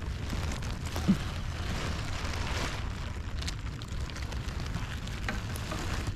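Wind buffeting the camera microphone: a steady low rumble, with a short knock about a second in.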